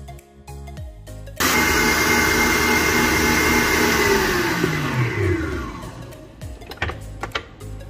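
Stand mixer with a balloon whisk beating egg whites at top speed: a steady motor whine over whisking noise that starts abruptly about a second and a half in. About four seconds in the motor is switched off and winds down, its whine falling in pitch until it stops. Soft background music before and after.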